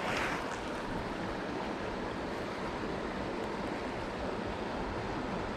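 Steady rush of water pouring over a small creek spillway.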